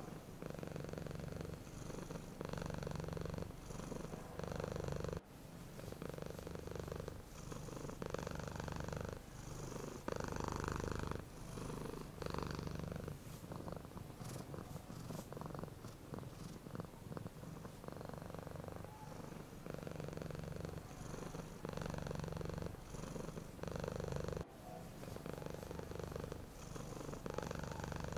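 Domestic cat purring steadily, the purr swelling and easing with each breath about once a second.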